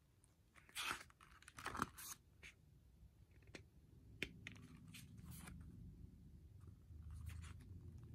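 Paper pages of a softcover booklet being turned and flexed by hand: a few short, faint rustles and crackles, the loudest about one and two seconds in. A faint low hum sits under the second half.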